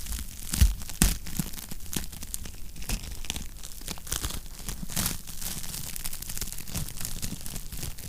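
Wood fire crackling in a fireplace: a dense, irregular run of small pops and snaps, with two louder pops about half a second and a second in.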